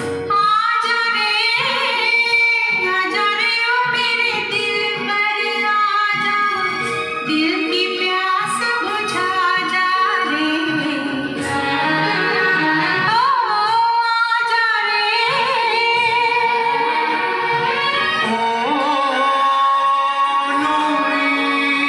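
A song with a woman singing over instrumental accompaniment, played from a vinyl record on a vintage Rotel turntable. The melody runs on continuously, with the voice sliding and wavering in pitch.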